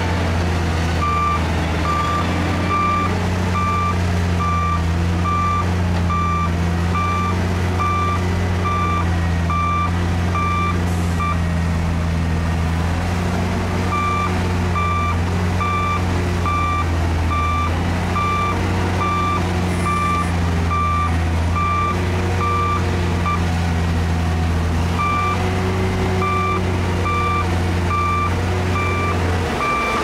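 Bulldozer diesel engines running steadily under load, overlaid by a reversing alarm beeping about twice a second. The beeping stops twice for a few seconds and starts again.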